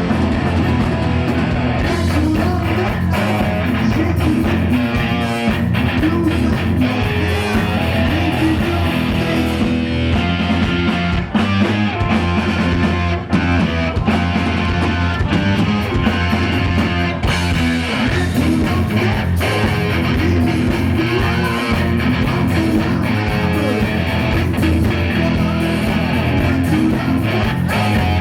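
Heavy metal band playing live, loud and steady, driven by electric guitar.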